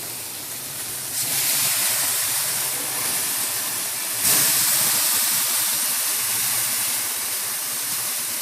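Sauced seitan chops sizzling on a hot barbecue grill just after being flipped, a steady hiss that grows louder about a second in and again about four seconds in.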